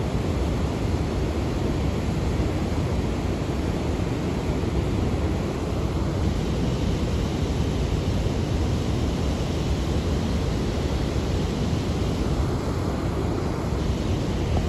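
Fast water of the Niagara River rushing through rapids, with waves breaking and washing over the bank: a steady, even rush heaviest in the low rumble, with no breaks.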